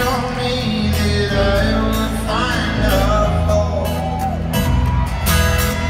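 Live folk-rock band playing in an arena: strummed acoustic guitar, banjo, fiddle, upright double bass and drums, with some singing.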